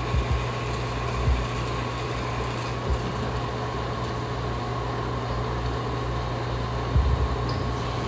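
Steady mechanical hum and whir from a motorised sound installation, with a constant low drone and a faint steady tone. A few low thumps come about seven seconds in.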